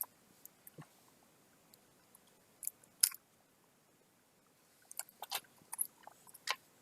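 Scattered small clicks and clacks of a laptop hard drive and its bracket being handled and worked loose from its connector, a couple near the middle and a quick run of them near the end.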